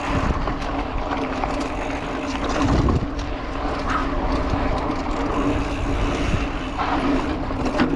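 Mountain bike rolling fast down a dirt and rock trail: a steady rumble of tyres on the ground with a constant hum, and wind rushing over the microphone.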